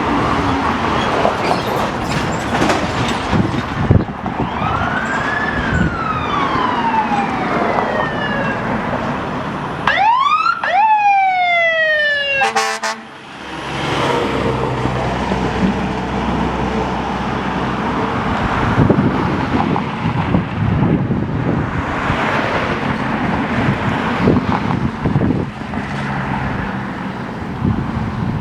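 Fire engine siren wailing, its pitch rising and falling, with a short blast of the engine's air horn about halfway through, over steady road-traffic noise.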